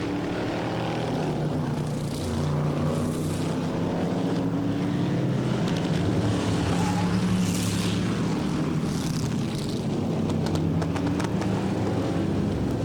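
Racing stock car engines running on the track during practice laps. The engine note holds steady with slight rises and falls in pitch, and grows a little louder about two seconds in.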